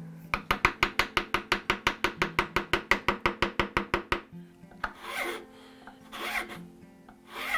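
A hand-held chisel cutting into walnut in a fast run of sharp clicks, about eight a second, that stop about four seconds in. Then a flat file rasps across the wood in three separate strokes about a second apart.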